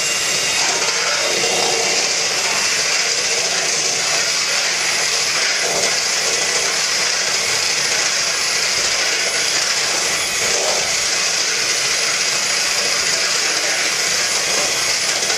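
Electric hand mixer running steadily, its beaters whisking cake batter in a stainless steel bowl.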